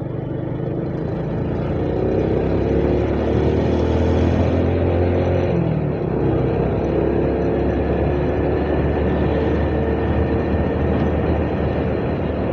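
Motorcycle engine running under way, heard from the rider's own bike with road and wind noise; the engine note rises over the first few seconds, dips briefly about five and a half seconds in, then holds steady.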